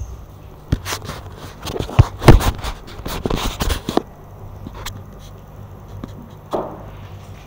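Handling noise from a hand-held camera: scraping, rubbing and knocks of fingers and clothing against the device, loudest about two seconds in. It is quieter after about four seconds, with one more knock near the end.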